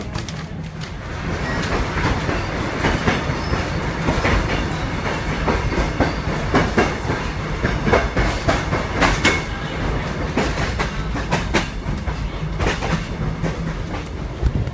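Kuranda Scenic Railway train running along the track: a steady low rumble with irregular sharp clacks of the wheels over the rail joints, about one a second. It grows a little louder about a second in.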